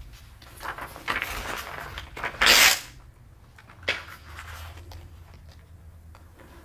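Paper rustling as pages of a spiral-bound manuscript are handled and turned, in several short swishes. The loudest is a brief rush about two and a half seconds in, and there is a sharp click near four seconds.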